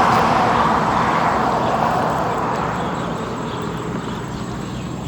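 A road vehicle passing by, its noise fading steadily as it moves away.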